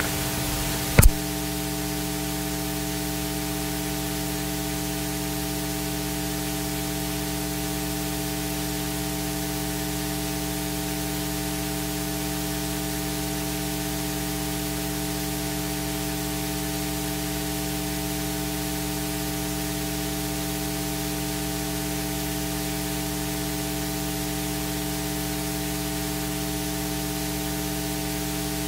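Steady electrical hiss with a mains hum and its buzzing overtones, from the recording or sound-system chain, after a sharp click about a second in.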